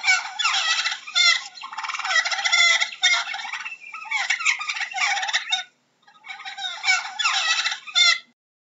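Turkey tom gobbling: a run of loud, rapid rattling gobbles with a brief pause about six seconds in, stopping shortly before the end.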